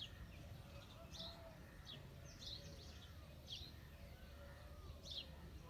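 A bird chirping: short, high, sharply falling chirps about once a second, over a faint low background rumble.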